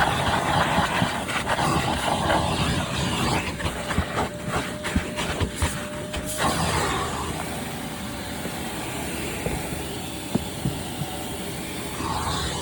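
Hart 6-gallon, 5 horsepower shop vac running with a steady rushing of air and a faint motor whine. There are many sharp clicks and rattles over the first six seconds or so, then it runs smoother and slightly quieter.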